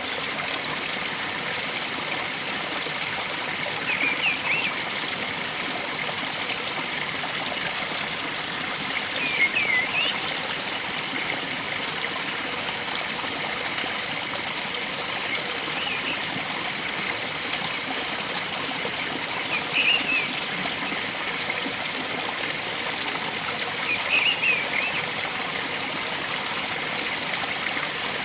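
Steady rush of flowing stream water, with short bird calls breaking in several times, every few seconds.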